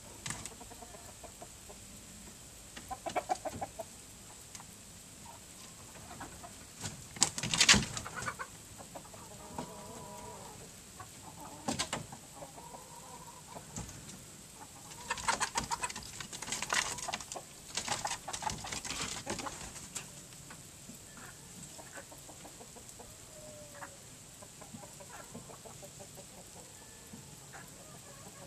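Chickens clucking and calling in short scattered bursts, with a sharp loud outburst about a quarter of the way in and a busier cluster just past the middle.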